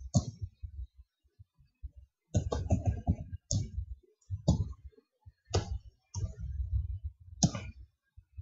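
Computer keyboard keys being typed, a quick run of keystrokes a little over two seconds in, then single, separate keystrokes about once a second.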